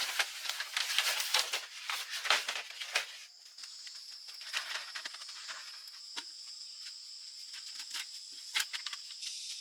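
Dense rustling and crackling clicks for about three seconds, then a steady high-pitched insect drone with scattered clicks.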